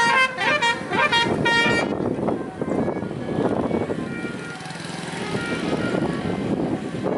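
A vehicle's telolet horn playing a quick tune of stepped, piercing notes for about the first two seconds. After that comes a noisy din of crowd and traffic, with fainter horn notes now and then.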